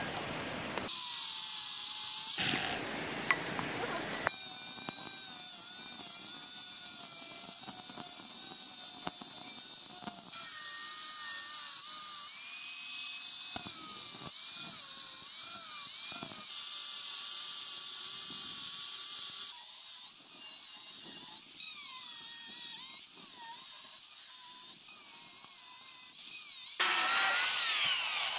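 Angle grinder with a cut-off disc slicing through a forged steel plate. Its high whine wavers and glides in pitch as the disc bites and eases off, and the sound jumps abruptly several times between joined shots.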